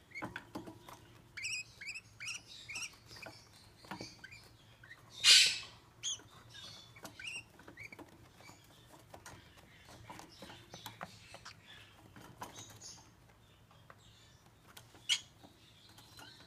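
Young peach-faced lovebirds chirping in short, high cheeps, among many small taps and clicks of feet and beaks on the cage's wire grate and paper lining. A loud harsh burst comes about five seconds in, and a single sharp click near the end.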